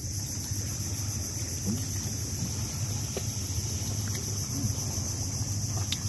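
Steady high-pitched insect drone from the mangroves over a low steady hum, with a few faint clicks and water sounds as a cast net is hauled up out of the water beside a small wooden boat.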